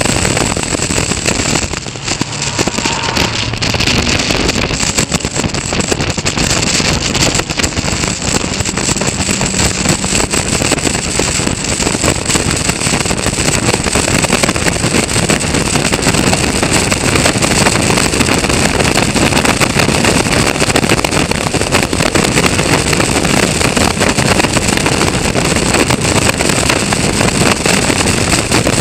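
Onboard sound of a Caterham Seven race car at racing speed: its engine running hard under a steady rush of wind on the open car.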